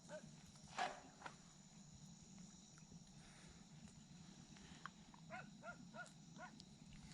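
Faint animal calls: a quick series of four short, rising-and-falling calls near the end, with a soft knock about a second in.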